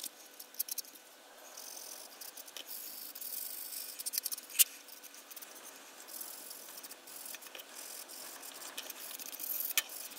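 A sanding stick rubbed over the plastic fuselage of a 1:72 scale model aircraft kit, a faint dry scratchy hiss with scattered small clicks, as seam lines are smoothed off before painting.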